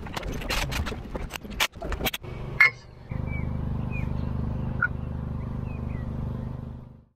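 Quick, irregular knocks and clatter of work on a wooden frame, ending in one sharp crack. Then a steady low motor hum with a few short bird chirps over it, cutting off just before the end.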